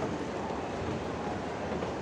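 A moving escalator running with a steady mechanical rumble, heard while riding it.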